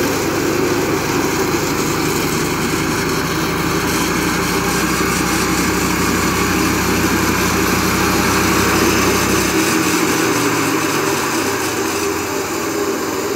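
Flail mower running steadily, its engine and spinning chopping shaft making a loud, even machine drone. About ten seconds in, the deepest part of the hum cuts off suddenly while the machine keeps running.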